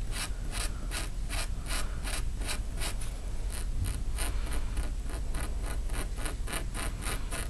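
Rapid, even scratching strokes across organza fabric on a hard surface, about four a second, working pulled threads back into the weave.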